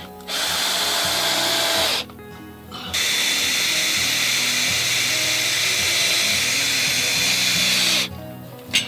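A power tool running in two long bursts, a short one and then one of about five seconds, with a steady high whine in its noise, over background music. A single sharp click near the end.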